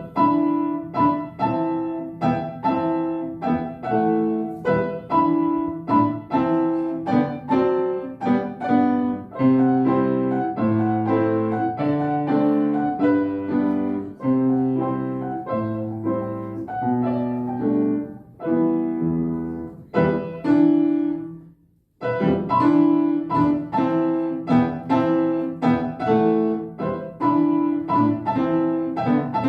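Solo piano playing a classical piece as a steady flow of struck notes and chords. About three-quarters of the way through, a chord dies away into a brief pause, and the playing then carries on.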